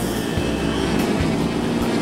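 Engines of radio-controlled scale model aircraft, O.S. engines, running steadily at high power as the planes fly past.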